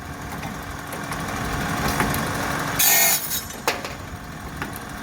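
Automatic cutting machine with an automatic stock feeder running through its repeating cycle: a steady machine run, then about three seconds in a short, loud burst of cutting noise followed by a sharp click, the cycle repeating every few seconds.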